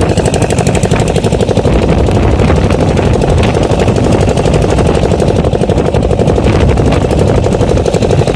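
Fishing boat's engine running under way: a loud, steady, rapid chugging.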